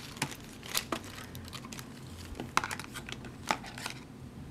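Plastic packaging crinkling and rustling as a wired headset is pulled out of its box, with scattered sharp crackles.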